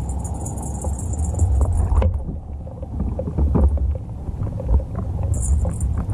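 Underwater recording of a topwater rat lure being worked across the surface: a steady low water rumble with scattered light knocks and clicks from the lure.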